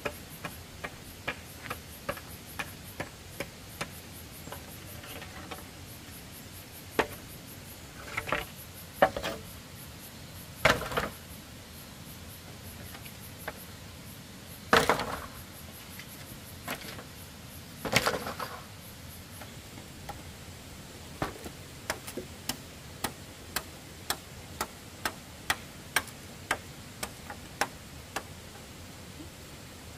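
Machete blade striking bamboo in quick, regular strokes, about two a second, as bamboo is trimmed and split into strips. In the middle stretch the strokes stop, and a few louder, longer knocks come a few seconds apart.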